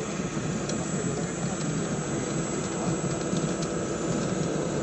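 Steady whirring of radio-controlled scale model machines, their small electric motors and gearing running, with a thin high whine and a few light clicks.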